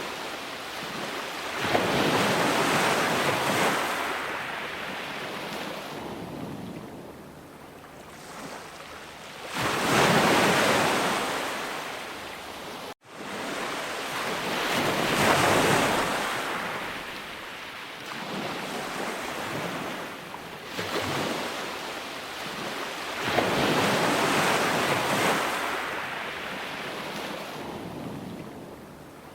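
Ocean waves breaking and washing ashore, the surf swelling and falling back every several seconds. A brief cut-out about halfway through.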